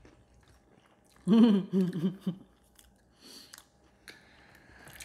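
People chewing and biting into the crisp fried crust of Jollibee peach mango pies, with faint crunching. About a second in there is a short, loud voiced sound, a hum or murmur from one of the eaters.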